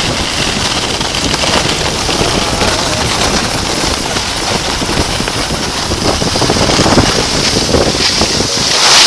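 Wind rushing over a moving phone's microphone, with the scrape of sliding over packed snow, a steady loud hiss that grows a little louder in the second half.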